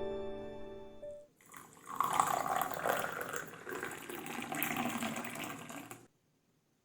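Sustained piano-like music dying away, then water running for about four and a half seconds before stopping suddenly.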